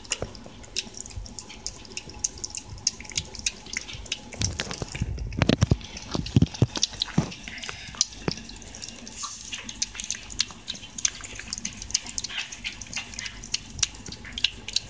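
A cat eating wet cat food from a plastic bowl: a steady run of small wet smacking and licking clicks, several a second. A few louder low thumps come between about four and a half and seven and a half seconds in.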